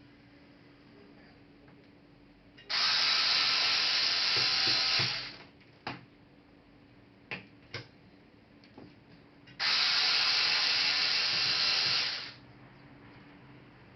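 Small electric screwdriver running twice, each run about two and a half seconds, driving laptop case screws. A few light clicks of screws and parts being handled come between the runs.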